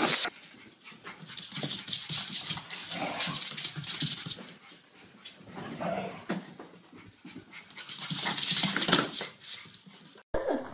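Dogs' claws clicking and skittering on a wooden floor as they run and scramble, with dog panting.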